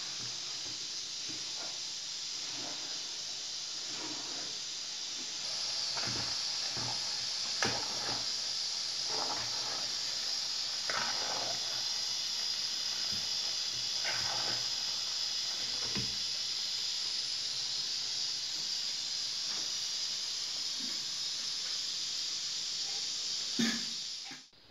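Pot of potato and greens filling cooking over a small gas burner: a steady hiss that grows louder about five seconds in, with the metal spoon scraping and knocking against the pot several times.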